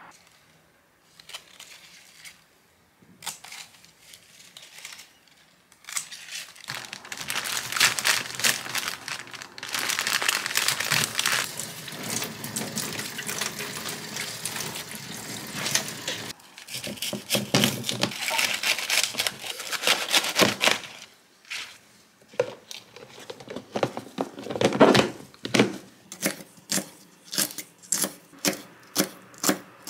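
A kitchen tap runs over green onions as they are rinsed and handled, with the leaves rustling. Later a knife chops green chili peppers on a thick wooden board in sharp, even strokes, about two a second and quickening near the end.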